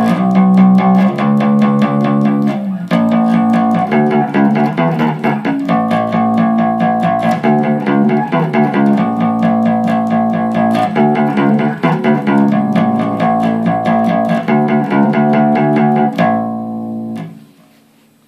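Electric bass guitar played in a fast, steady run of picked notes with sharp attacks. Near the end the playing stops on one held note that rings out and fades to silence.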